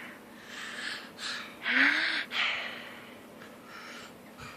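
A baby making a run of breathy, gasp-like huffing sounds, about four in a row, one of them with a short voiced rise and fall in pitch. The later ones are fainter.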